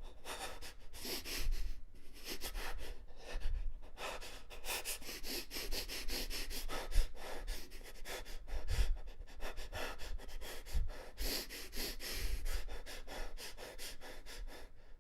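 A person breathing fast and unevenly in panic: quick, ragged breaths and sniffs in close succession, with a few low thumps, the sharpest about seven seconds in.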